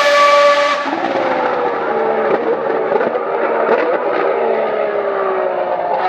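V12 Formula 1 engine running at high revs with a steady high note. From about a second in, the note falls slowly and steadily in pitch for several seconds, broken by a few short blips.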